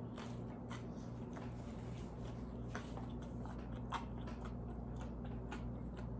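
A person chewing a mouthful of cauliflower-crust pizza: faint, irregular wet mouth clicks over a steady low hum.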